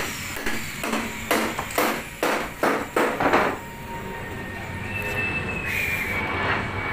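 Construction work noise: a quick, irregular run of sharp knocks or scrapes for about three seconds, then a steadier noise with a thin high squeal that sags slightly in pitch near the end.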